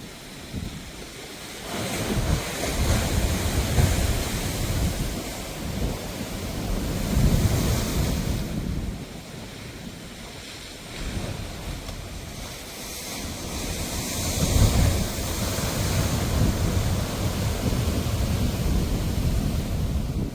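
Sea waves surging in and washing back in several swells, rising about two seconds in, easing off around eight seconds, and building again from about eleven seconds. Wind buffets the microphone, adding a low rumble.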